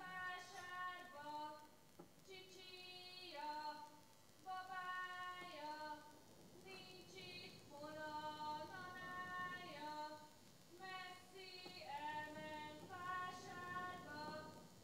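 A woman's solo voice singing a slow Hungarian folk song, holding long notes that step up and down in short phrases with brief breaths between them.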